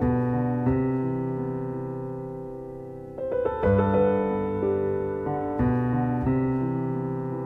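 Background piano music: slow chords struck every second or so, each note ringing and fading away.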